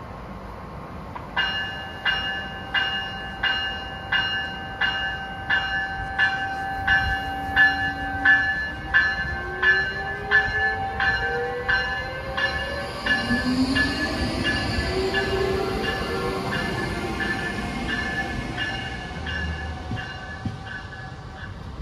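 Amtrak ACS-64 electric locomotive pulling out of a station, its bell ringing steadily at about three strokes every two seconds. Partway through, a whine from the locomotive rises in pitch as the train picks up speed.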